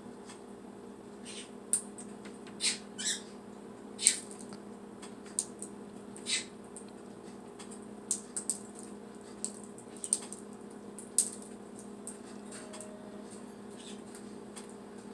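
A cat chewing a crunchy snack: irregular sharp crunches and clicks, a dozen or so spread unevenly, over a steady low hum.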